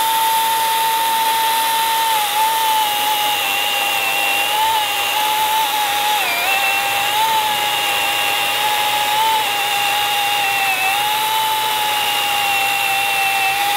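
Milwaukee M18 Fuel top handle battery chainsaw cutting through an oak log: the electric motor and chain make a steady high whine that dips briefly about six seconds in and recovers. The saw does not bog down in the hardwood.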